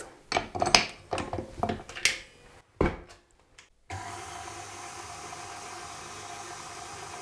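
A few clicks and knocks as a dough hook is fitted onto a KitchenAid Artisan stand mixer, then, about four seconds in, the mixer starts and runs with a steady motor hum, its dough hook kneading flour, butter and egg into shortcrust pastry.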